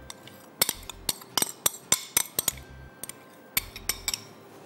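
A spoon clinking and tapping against a bowl as yogurt is spooned out of it: a quick, irregular run of sharp clicks.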